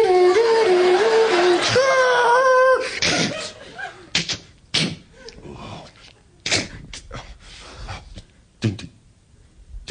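A man's voice imitating a two-tone ambulance siren into a microphone, swinging between two pitches for about three seconds and then stopping. After it come several scattered sharp clicks and knocks.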